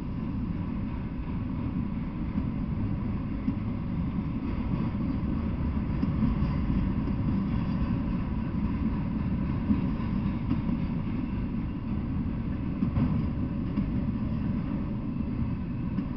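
Freight train of autorack cars rolling past at speed: a steady low rumble of wheels on rails, with a few sharper clacks.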